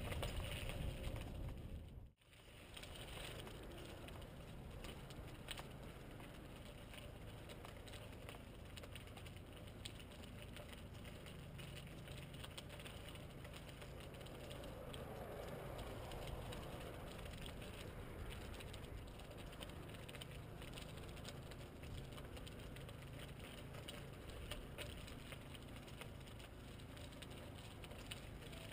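A bicycle riding along a paved trail, heard from a handlebar-mounted camera: a steady low rumble of tyres and wind. It is louder for the first two seconds, with a sharp momentary drop-out about two seconds in.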